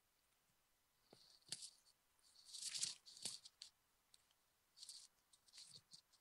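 Faint scattered clicks and rustling, with a longer, louder rustle about two and a half seconds in; otherwise near silence.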